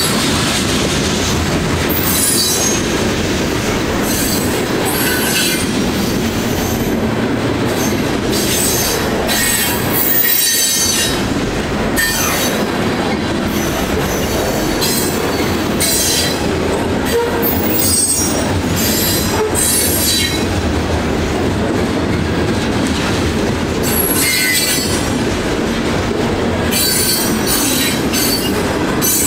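Freight train cars rolling on the rails, with a steady rumble and wheel squeal that comes and goes in high-pitched spells.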